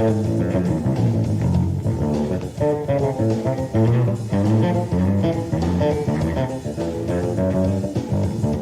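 Electric bass guitar playing a solo live: a busy, unbroken run of plucked notes with notes sounding together as chords.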